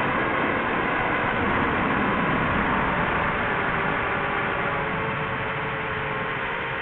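DJI FPV drone's motors spinning 5-inch Gemfan Hurricane 51466 props: a steady propeller hum and whine over a rushing noise, its pitch sinking slightly and the level easing off a little near the end.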